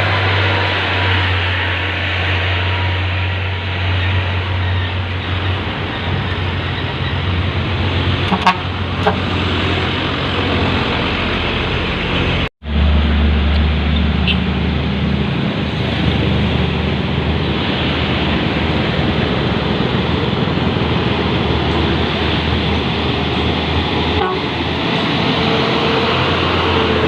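Heavy diesel truck engine running steadily under load, with a deep drone and occasional horn toots. The sound cuts out for an instant about halfway through, then the engine continues.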